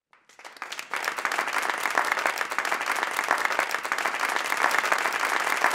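Live audience applauding, many hands clapping at once, fading up from silence over the first second and then holding steady.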